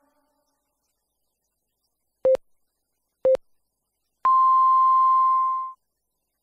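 Radio time-signal beeps: two short low pips a second apart, then one long pip an octave higher that holds for about a second and a half and stops.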